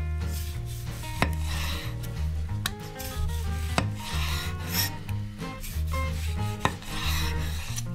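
A santoku knife slicing through a ripe tomato on a bamboo cutting board: a short scraping rasp as the blade saws through the skin and flesh, then a sharp tap as it meets the wood, several times over. Background music plays underneath.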